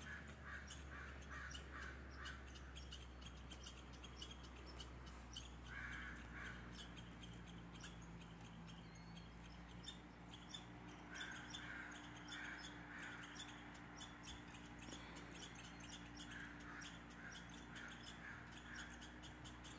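A deer grazing, its cropping of grass heard as faint crisp clicks and tearing sounds. A bird calls in short quick runs of notes several times, over a steady low hum.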